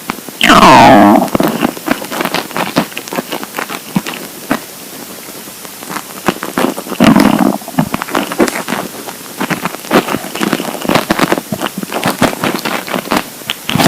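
Empty stomach rumbling from hunger: a loud growl falling in pitch about half a second in, another shorter growl about seven seconds in, and scattered gurgling pops and crackles in between.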